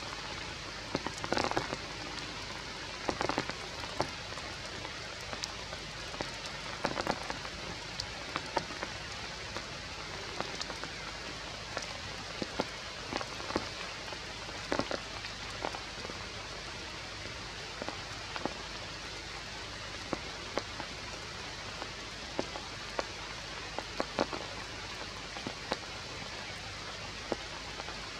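Steady rain falling on leaves, with scattered louder drop hits.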